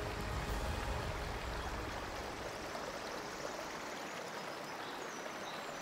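Rushing water of a rocky forest stream: white-water rapids pouring over stones in a steady rush.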